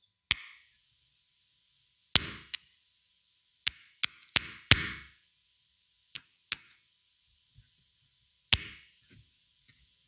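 Effects-pedal footswitches being stomped on and off: about ten sharp clicks, several in quick pairs, some with a short low thump after them. These are the engage clicks some of the Caline pedals make, put down to switch bounce.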